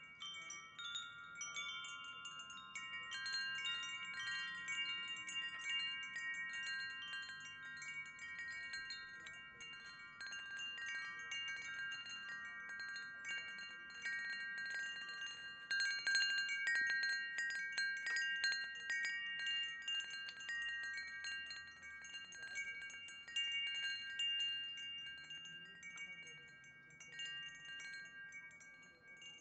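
Wind chimes ringing: several chime tones sound and overlap continuously, with a busier cluster of strikes about halfway through.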